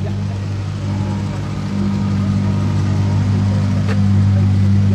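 An engine running steadily with an even hum that grows a little louder about two seconds in. A single short click sounds near four seconds in.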